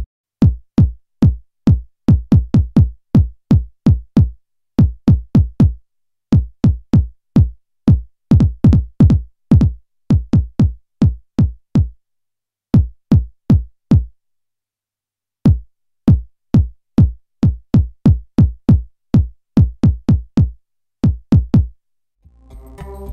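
Electronic music: a drum-machine kick drum beating in quick, even runs with short breaks between them.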